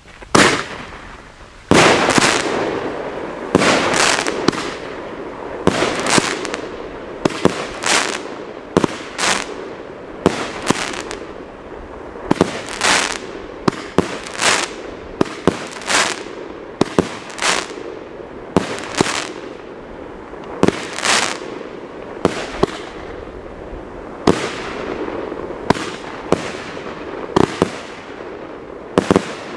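Gaoo Blossom SL19-07 consumer firework battery firing shot after shot, roughly one a second, each a sharp bang with a short trailing hiss.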